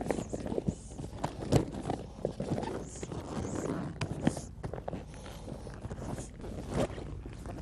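Inflatable kayak being rolled up to deflate it: irregular knocks and rustling of the hull fabric, with a few short high hisses of air being pressed out.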